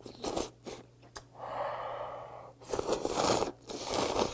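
A person slurping hot kalguksu noodles off chopsticks: several long, breathy sucking slurps, the loudest about three seconds in.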